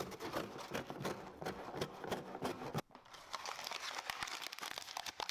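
Packaging crinkling and rustling as the speaker's box is handled and unpacked, a dense run of small crackles with a brief pause about three seconds in.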